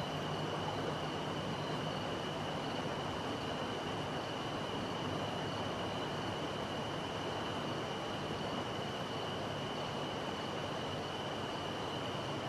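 Steady outdoor background noise at night: an even, unchanging hiss and hum with a constant high-pitched whine running through it.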